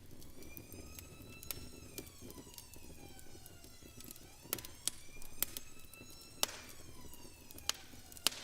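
Faint siren wailing, its pitch rising and falling slowly over a few seconds, with scattered sharp clicks and crackles.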